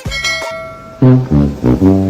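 The last notes of a bouncy music track fade out. About a second in, a truck's air horn gives four short, loud blasts, the last one held.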